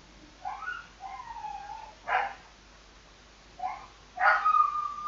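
Several short animal cries gliding up and down in pitch, with two sharper, louder calls about two and four seconds in, the last one held longer.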